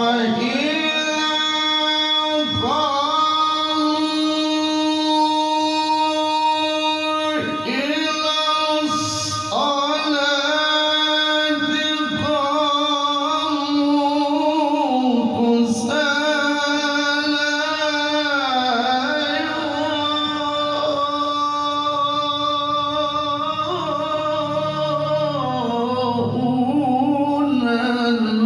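A male voice in melodic Quran recitation (tarannum), drawing out long, ornamented held notes in several sustained phrases with brief breaks between them.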